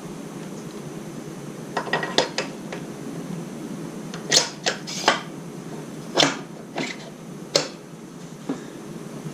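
Metal tools and parts clinking and knocking while a motorcycle front wheel is refitted: about a dozen sharp, separate clinks, loudest around the middle, over a steady hiss.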